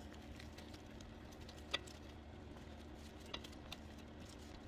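Faint metal clicks of diagonal cutters gripping and working a cotter pin out of a tie rod end's castle nut: one sharper click about two seconds in, and a couple of lighter ticks later.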